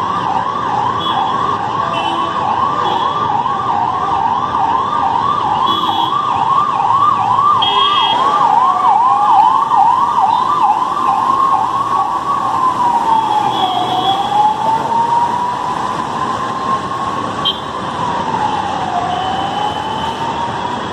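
Emergency vehicle siren sounding in a fast yelp, about three sweeps a second, then changing about halfway through to a slow wail that rises and falls every few seconds.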